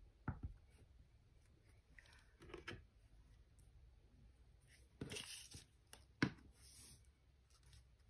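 Faint scraping of a glue stick rubbed across paper and paper being handled on a table, with a few soft clicks and taps; the sharpest click comes about six seconds in.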